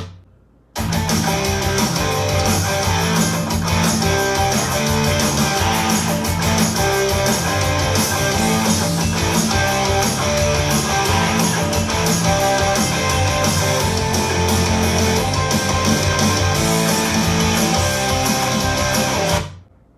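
Guitar-driven rock music with a strong bass line, played back through a home speaker under test. It drops out briefly just after the start and again near the end.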